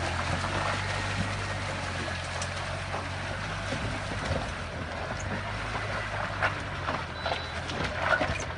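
Mahindra Thar 4x4's engine running at a low, steady note as it wades through a shallow river, water sloshing around the wheels. Near the end a few sharp knocks sound as the tyres climb onto loose stones.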